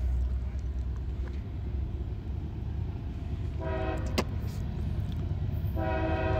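Distant freight locomotive air horn, several notes sounding together: a short blast about three and a half seconds in, then a long blast starting near six seconds, over a low rumble. The short-then-long pattern is typical of a locomotive's grade-crossing horn signal.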